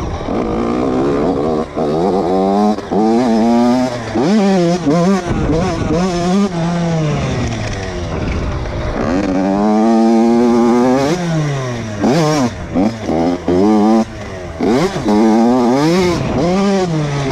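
Dirt bike engine revving up and falling back over and over as it is ridden along a trail, its pitch climbing with each throttle opening and dropping between, with one longer climb through the revs about nine seconds in.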